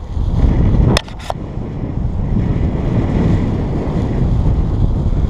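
Strong wind buffeting the microphone: a loud, steady low rumble, with two sharp clicks about a second in.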